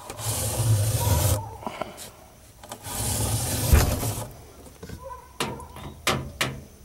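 Fin comb scraped through the thin aluminium fins of an HVAC coil: two long rasping strokes, then several sharp clicks near the end. The coil is so dirty that the comb's teeth are clogging up.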